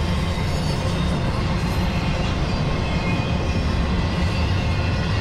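Double-stack intermodal freight train rolling past at track side: steady noise of the cars' wheels on the rails, heaviest in the low end.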